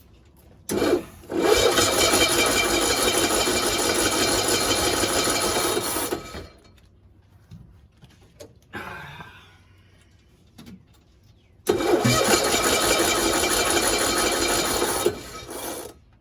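1965 Cushman Truckster's engine being cranked to start, in two tries: one of about five seconds, then after a pause a shorter one of about three and a half seconds. Each try cuts off abruptly and the engine does not keep running, while the carburetor mixture is still being adjusted.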